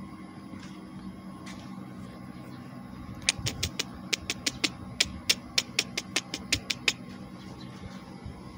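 A quick, irregular run of about twenty sharp clicks, four to six a second, from about three to seven seconds in, over a steady low hum.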